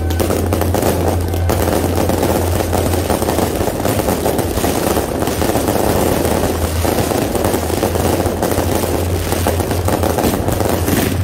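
Fireworks barrage: aerial shells and comets firing and bursting in a rapid, unbroken run of popping and crackling bangs, with a steady low hum underneath.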